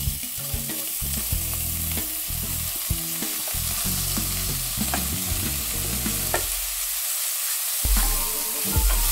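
Shredded cabbage frying in hot oil in a nonstick pot, sizzling steadily as it is poured in. Near the end a wooden spatula stirs it, with a few knocks against the pan.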